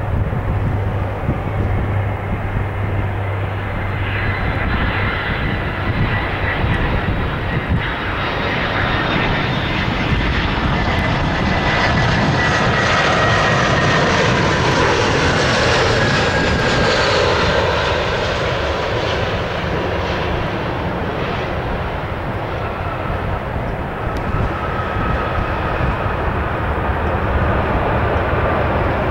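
Airbus A320 jet engines on landing: a steady roar with a whine that grows louder as the airliner approaches, peaks as it passes close at touchdown about halfway through with the whine falling in pitch, and swells again near the end as it rolls out down the runway.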